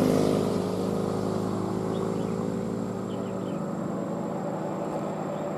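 A steady engine hum, slowly fading, with a few faint short bird chirps around the middle.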